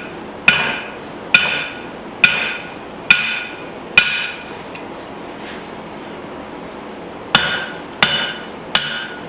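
Blacksmith's hammer striking hot spring steel on an anvil, each blow ringing. There are five blows at a steady pace, a pause of about three seconds, then three more blows near the end.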